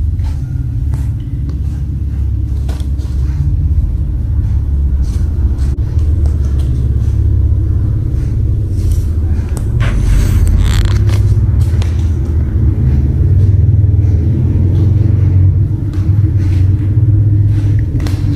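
A steady low rumble throughout, with scattered scratches and rustles from kittens scrabbling on a fabric play tunnel and tile floor, and a louder rustle about ten seconds in.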